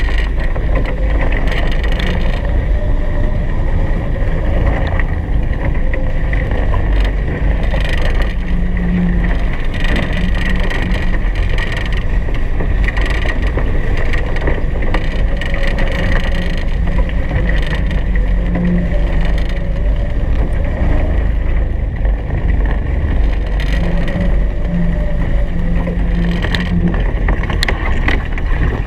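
Wind buffeting the microphone and water rushing past the hulls of a Hobie Cat 16 catamaran under sail, loud and steady.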